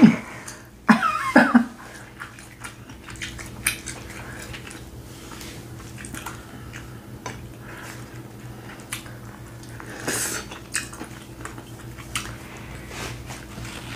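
Scattered small clicks and crackles of a cooked king crab leg's shell being picked apart by fingers to get at the meat, with a brief murmur of voice about a second in and a short rustle near the end.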